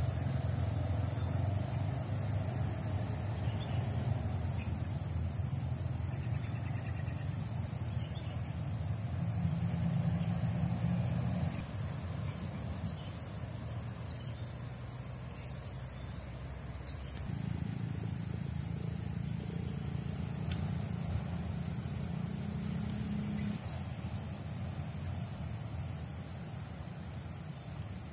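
A steady, high-pitched chorus of insects, such as crickets or cicadas, droning without a break. Beneath it is a low rumble that swells twice and eases off again.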